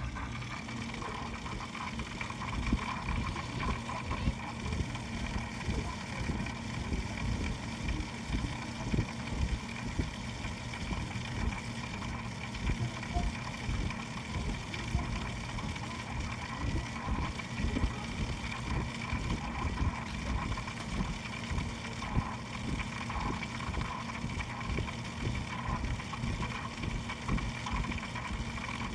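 A PC running with a steady hum and an uneven, rough grinding underneath, the grinding noise of a fault inside the computer.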